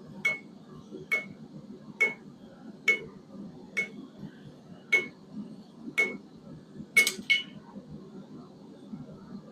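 Hammer blows on hot quarter-inch square steel bar stock over an anvil, about one a second with a short ring after each, the last two in quick succession, then stopping. The end of the bar is being hammered to upset it and thicken it for the scratching end.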